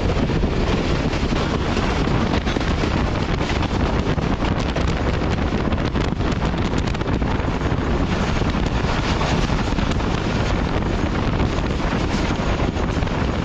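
Wind buffeting the microphone at the open door of a moving passenger train, over the steady running noise of the train.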